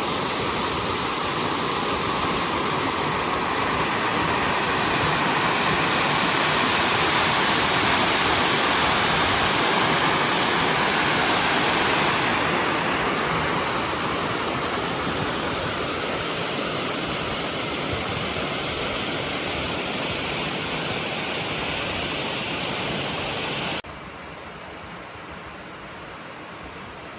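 Waterfall rushing, a steady noise of falling water. Near the end it drops suddenly to a much quieter steady rush.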